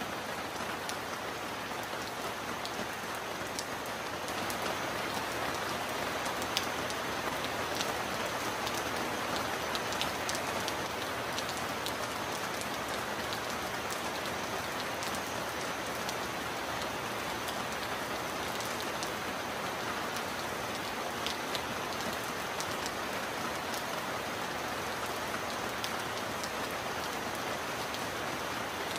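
Heavy rain falling steadily: a dense, even hiss with sharp drop ticks scattered through it, growing a little louder about four seconds in.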